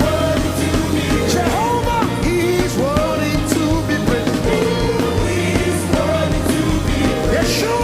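Live worship band music: a steady bass, cymbal hits and a gliding melodic lead line.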